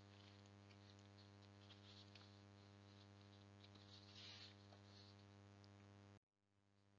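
Near silence: room tone with a faint steady hum and a few tiny clicks; the hum stops abruptly about six seconds in.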